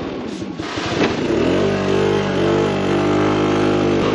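Scooter engine pulling away and picking up speed. From about a second and a half in, its note holds nearly steady as it accelerates.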